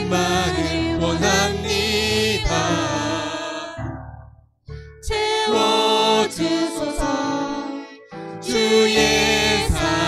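Contemporary worship song sung live by a man and a woman with acoustic guitar, violin and keyboard accompaniment. The sound drops away briefly about four seconds in, then the singing comes back in.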